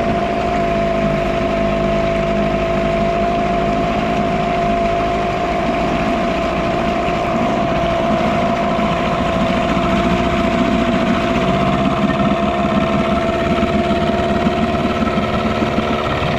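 Yamaha 6 hp two-stroke outboard motor running steadily, its leg in a tub of churning water.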